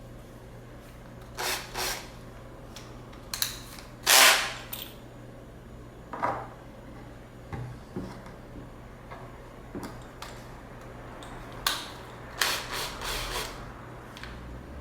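Scattered clicks and short rattles of a cordless drill/driver being handled, with no motor run, the loudest rattle about four seconds in and a cluster near the end, over a faint steady hum.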